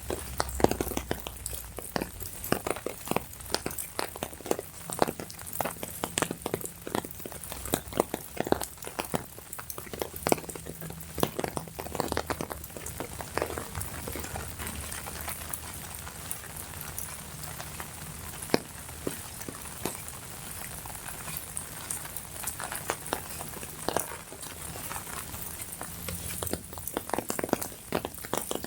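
Rain pattering on an umbrella: a dense, irregular run of close drop ticks over a steady hiss of rainfall.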